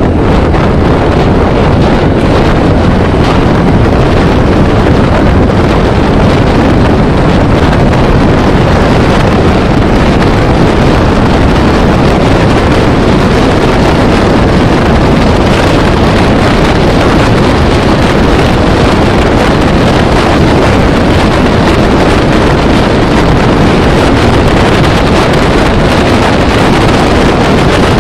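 Loud, steady wind noise buffeting the microphone of a camera moving at road speed, a continuous rushing with no break.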